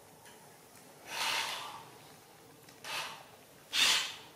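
Three short, breathy huffs of air, a second or so apart, the last the loudest.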